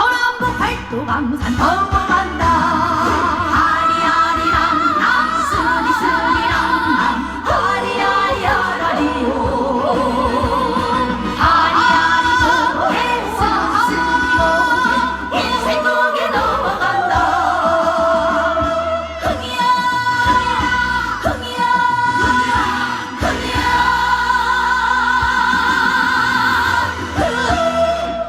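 Live trot song: a woman singing with wide, wavering vibrato over full musical accompaniment.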